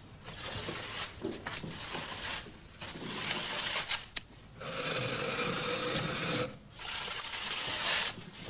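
Scraping, rubbing noises on a floor from a child crawling on hands and knees. They come as about five separate strokes, each a second or two long, with short pauses between them.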